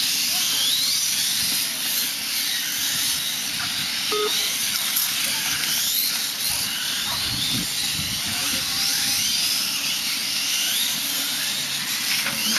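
Electric motors of 1/8-scale radio-controlled racing motorcycles whining, with repeated rising whines as the bikes accelerate, over a steady hiss.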